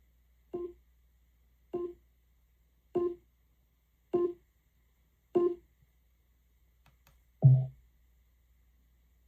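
Amazon Echo Dot Max smart speaker playing five short identical beep tones about a second apart, each a little louder than the last, as its volume is stepped up. About 7.5 seconds in comes one louder, deeper tone.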